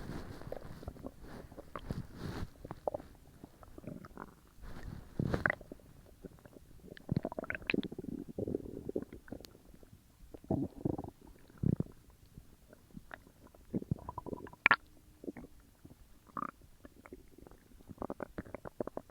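Human stomach full from a large meal, digesting: irregular gurgles and rumbles, some rising into short squeaky whines, the sharpest about three-quarters of the way through.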